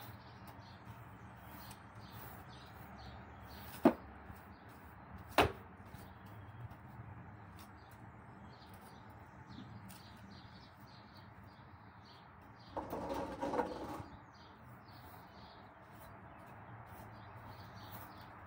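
Push broom sweeping a wet tiled terrace, its bristles making faint scratches. Two sharp knocks come about four seconds in and again a second and a half later, and there is a brief louder patch of sound a little past the middle.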